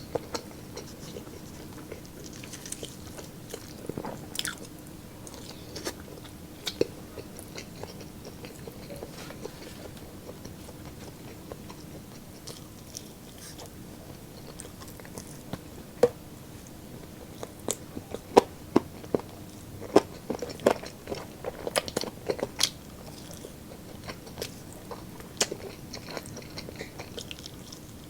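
Close-miked eating: a person chewing and biting roast pork ribs and chicken with rice, with wet mouth sounds and scattered sharp clicks that come thickest in the middle of the stretch, over a faint steady hum.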